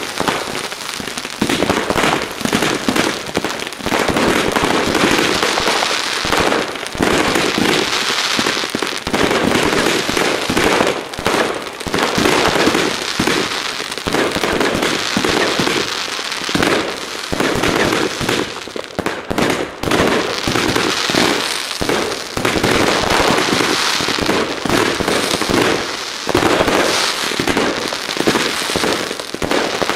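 Consumer firework batteries firing on the ground: a continuous, dense barrage of shots, bangs and crackling with no pause.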